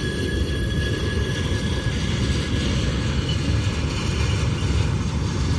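CSX freight train of auto-carrier cars rolling past at a level crossing: a steady rumble of steel wheels on the rails, with faint high wheel squeal fading in the first couple of seconds.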